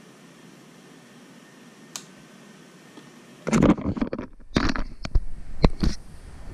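Handling noise on the camera's microphone: loud rubbing, bumps and a few sharp knocks as the camera is picked up and moved in close to the work, starting about halfway through. Before that, only a faint steady hiss and a single click about two seconds in.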